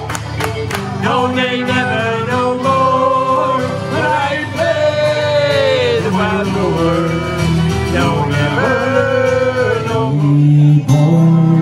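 Live folk music: a man singing over acoustic guitar and fiddle, with a few hand claps near the start.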